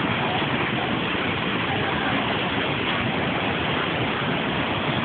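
Floodwater rushing: a muddy river in spate pouring past, a steady, even rush of water with no pauses.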